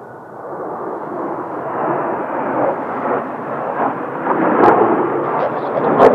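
Kawasaki T-4 jet trainers' turbofan engines, a rumbling roar that builds steadily as the jets approach. Two sharp clicks near the end.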